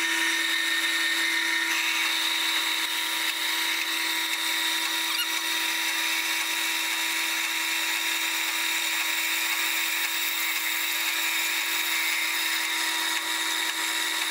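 Carolina HV20 horizontal metal-cutting bandsaw running with its blade slowly sawing through square metal tubing. It is a steady hum with several constant higher whining tones.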